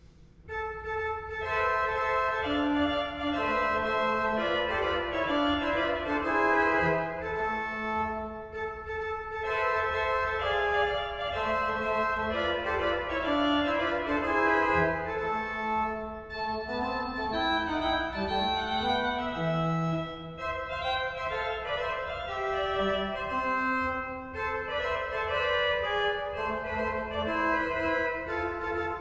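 An organ played in full sustained chords with a moving melody line, starting about half a second in after near silence.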